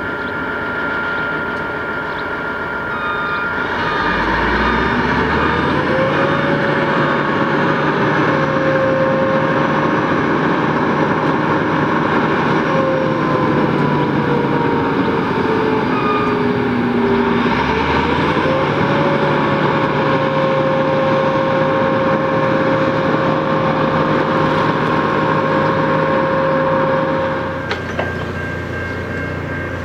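Diesel locomotive of a track maintenance work train running past, with a steady rumble of wheels and engine. The engine note rises about four seconds in, sinks slowly, then rises again as its speed changes. Near the end there is a click and the sound drops to a quieter steady rumble.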